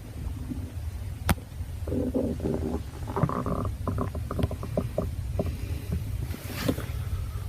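Human stomach growling: a steady low rumble with a run of bubbling, pitched gurgles about two to five seconds in. A single sharp click sounds just over a second in.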